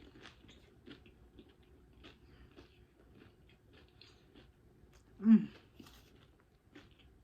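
A person chewing a mouthful of food close to the microphone, with many soft, wet mouth clicks. A short hummed "mm" about five seconds in.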